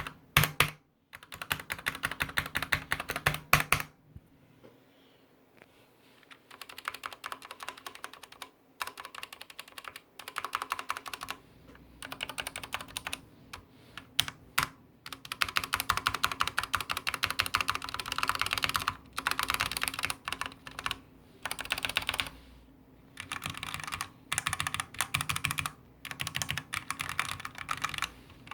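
Typing on a Typone Mars Pro mechanical keyboard with Cherry MX Black linear switches: rapid runs of keystrokes, with a pause of about two seconds a few seconds in and short breaks between the bursts.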